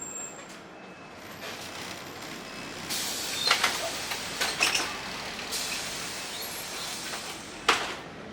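Steady ride noise inside a moving passenger vehicle, with a few short sharp sounds about three and a half, four and a half and seven and a half seconds in, the last the loudest.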